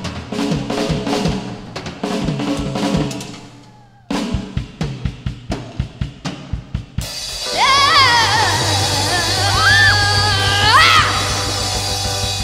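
Live rock band with electric guitar, bass and drum kit playing a driving riff that breaks off about four seconds in. A drum fill of quick hits follows, then the song's ending: a long held chord over a drum roll, with high notes bending up and down over it.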